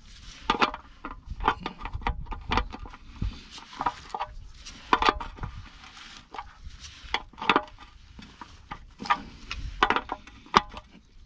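Socket wrench with a 21 mm socket tightening a steel oil sump plug: repeated short clicks and metallic clinks in uneven clusters as the tool is worked back and forth.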